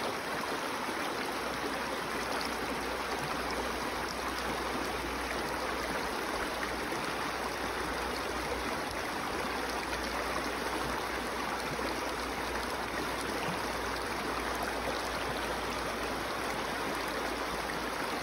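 River water rushing over boulders in shallow rapids: a steady, even rush of flowing water.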